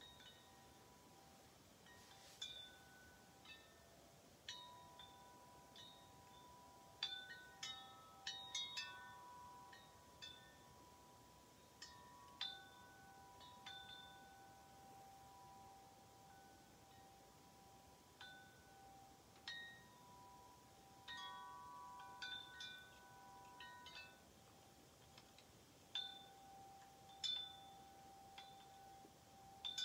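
Wind chime with long metal tubes being struck at irregular intervals, sometimes several tubes in quick succession. Each strike leaves clear tones ringing on for a second or more.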